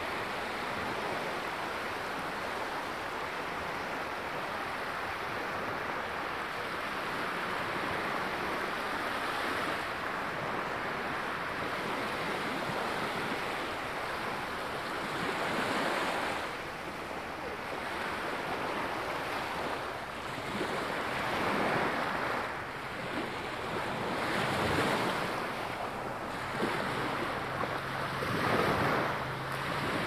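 Small waves lapping and washing up onto a sandy beach: a steady surf hiss, with four louder swashes in the second half as waves break close to shore.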